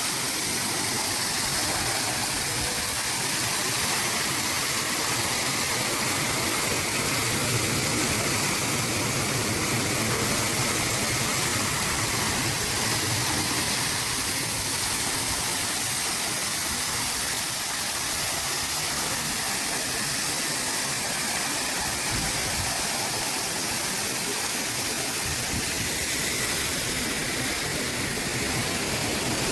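Steady rush of falling water from the Anjos waterfall, an even hiss with no breaks.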